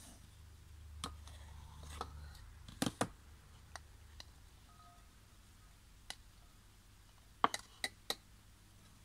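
Kitchen knife tapping against a wooden cutting board while slicing vegetables: a dozen irregular sharp clicks, with a quick run of four near the end.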